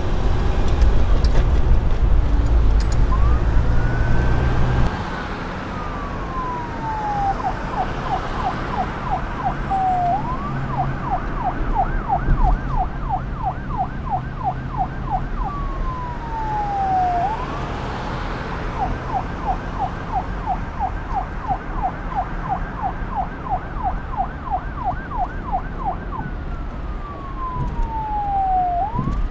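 Police car siren alternating a slow rising-and-falling wail with a fast yelp that sweeps about four times a second. A loud low rumble sits under the first five seconds.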